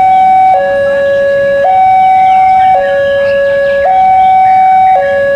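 Railway level-crossing warning alarm sounding a steady electronic two-tone signal, switching between a higher and a lower note about once a second, the warning that a train is approaching the crossing.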